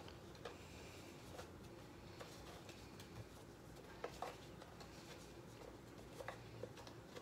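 Faint room tone with a few soft, scattered clicks and taps from a plastic toy blaster being handled.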